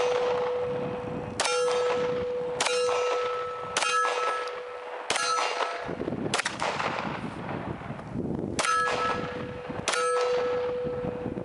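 About seven shots from a 9mm Glock pistol, fired at a steady pace one to two seconds apart. Each shot is followed by a steel target clanging and ringing with a clear, held note.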